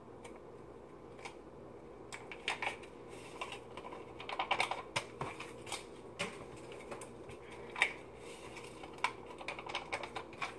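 Kool-Aid drink-mix packets being torn open and handled: scattered soft crinkles and light clicks at irregular moments.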